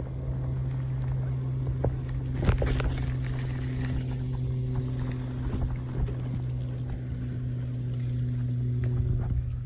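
Riding noise from a bicycle moving along a trail: a steady low hum under a rough haze of rolling and wind noise on the microphone, with a few knocks about two and a half seconds in. The hum cuts off near the end.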